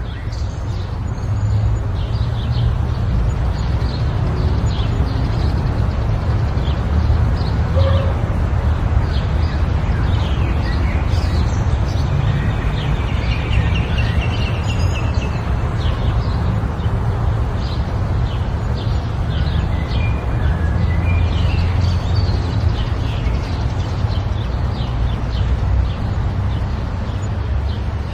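Many short bird chirps over a loud, steady low rumble.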